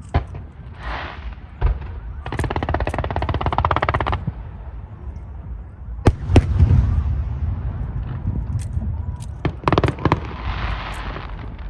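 Aerial fireworks going off: several sharp bangs over a low rumble, and a dense run of rapid crackling lasting about two seconds.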